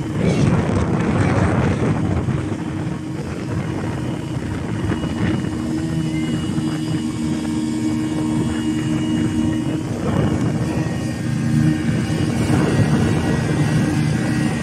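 Speedboat engine running steadily under way, a constant drone. Surges of rushing wind and water noise come in near the start and again about ten seconds in.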